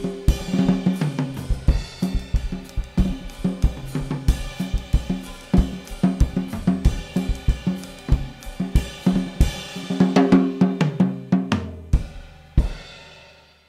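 Band music driven by a busy drum kit, with cymbals, hi-hat, snare and bass drum over low pitched bass notes. It ends on a final hit near the end and dies away.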